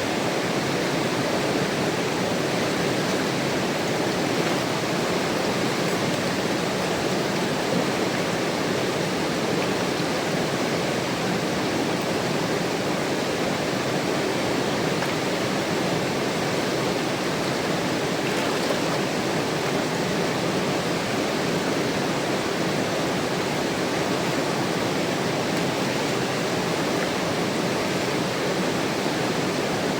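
Mountain river rushing over rocks: a steady, unbroken wash of flowing water.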